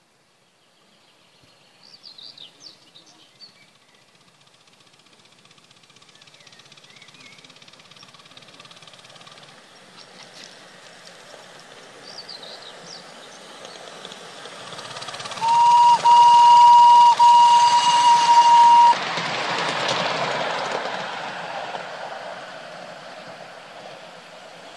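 Miniature steam locomotive modelled on a GWR 1420 class tank engine, its running noise growing as it approaches, then sounding its steam whistle: a steady high tone in three blasts, a short one and two longer, the loudest sound here. After the whistle comes a broad rush as it passes close, fading near the end; birds chirp about two seconds in.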